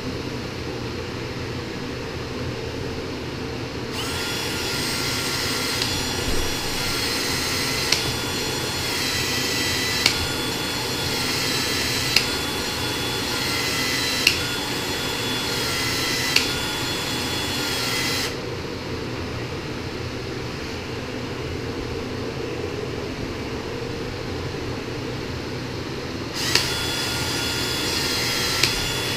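Handheld gas soldering torch burning against a copper fitting with a steady hiss and a thin whistle, heating it for soldering. The flame starts about four seconds in, stops partway through and starts again near the end, with sharp clicks about every two seconds while it burns. A steady low hum runs underneath.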